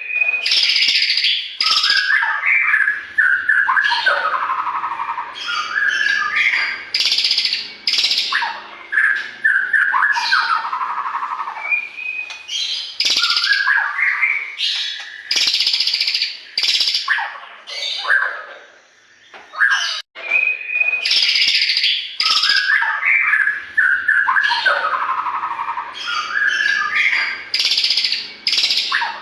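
White-rumped shama singing a loud, varied song of whistled phrases, rapid glides and harsh chattering notes. About 20 s in the song breaks off briefly, and the recording starts over with the same phrases.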